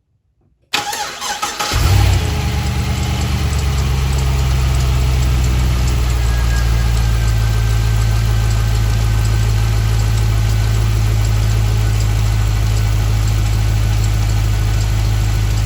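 A 2006 Pontiac GTO's LS2 V8 cranked by the starter, catching after about a second with a brief flare, then settling into a steady idle. It runs smoothly on all eight cylinders after the fuel injector replacement, with a light ticking that the owner thinks might be the original accessory drive belt.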